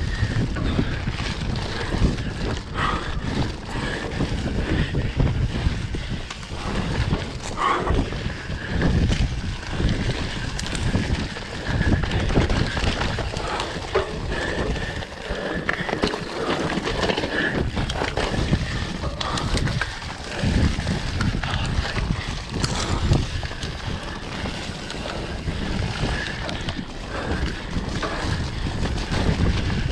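Enduro motorcycle engine running as it is ridden, its loudness rising and falling, with wind noise on the microphone.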